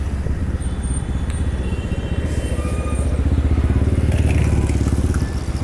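Motorcycle engine running at low revs close by while the bike is being parked, with a rapid, even pulsing of its firing strokes. It gets a little louder about three seconds in and eases off near the end.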